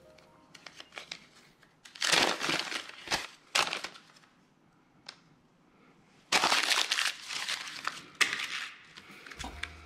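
Crinkling, rustling handling noises in several short bursts, with a few sharp clicks between them.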